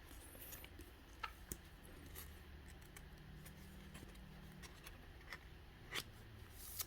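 Faint handling noises of trading cards being shown: scattered light clicks and rustles, a handful over several seconds, over quiet room tone.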